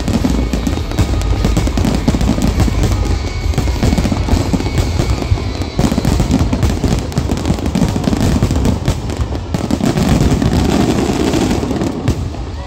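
Aerial fireworks shells bursting in rapid, overlapping succession: a continuous rumble of booms and crackle, the dense closing barrage of a fireworks show. Show music plays underneath.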